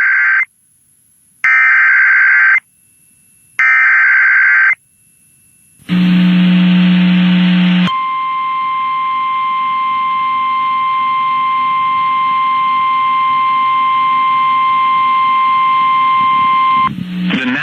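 Emergency Alert System header: three short bursts of warbling SAME data tones, each about a second long, then a low buzz lasting about two seconds, then a single steady 1050 Hz warning alarm tone held for about nine seconds before it cuts off. Together these announce an incoming weather warning.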